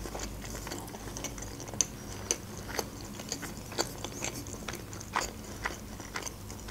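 A person chewing a boiled dumpling with the mouth closed, close to the microphone: soft, irregular wet mouth clicks and smacks, a few sharper ones scattered through.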